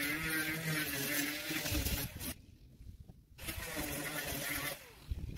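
Power sander running on weatherboards: a steady motor hum with the grinding of the sanding pad. It drops away abruptly for about a second midway and again briefly near the end.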